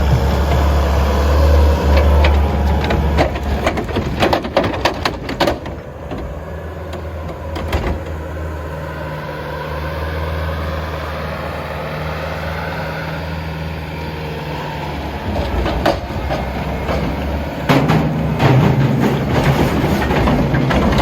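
Skid steer engine running and revving up and down as the machine works, with loud clanks and knocks of metal now and then, bunched about four seconds in and again near the end.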